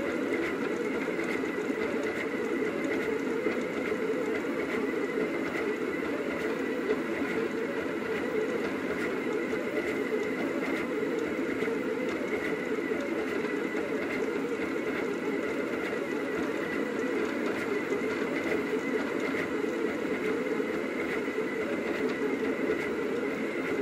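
Rostock delta 3D printer running a print: its stepper motors and carriages whir and buzz steadily as the print head moves, with a thin steady whine over the top.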